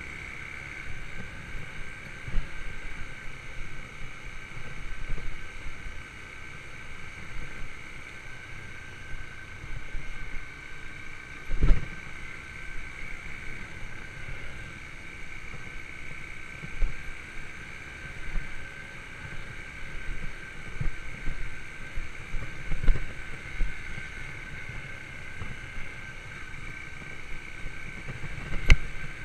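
Yamaha YBR125 single-cylinder motorcycle engine running at a steady pitch while riding, with wind on the microphone and low thumps from the rough ground. A sharper knock comes about twelve seconds in and again near the end.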